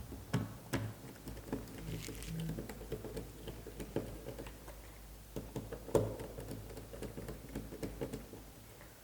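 Irregular small clicks, taps and rustles of hands handling insulated cables and plastic parts inside a lighting-track feeder while the wires are fixed in place, with a few sharper clicks about half a second in and about six seconds in.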